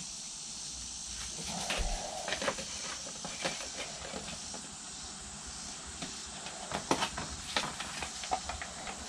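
Light taps and scrapes of a wooden stir stick and plastic mixing cups as two-part flotation foam is poured together and stirred, over a steady hiss.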